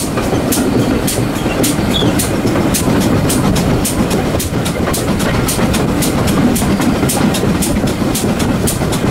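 Steam train under way, heard from a carriage window close behind the locomotive, a GWR Prairie 2-6-2 tank: a fast, even rhythm of sharp beats, about three a second, over the steady rumble of wheels on the track.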